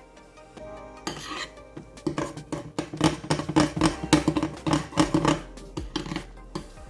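Background music, with a metal utensil clinking rapidly against a mixing bowl for a few seconds in the middle, as when stirring pancake batter.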